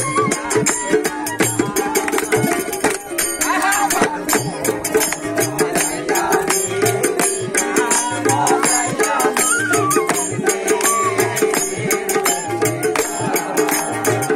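Live folk ensemble playing: a bamboo flute and plucked string instruments carry a wavering melody over hand drums keeping a steady beat, with quick clicking percussion on top.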